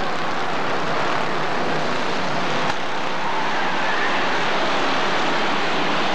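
A field of stock cars racing at speed, many engines blending into one steady, dense noise, with a single brief click about three seconds in.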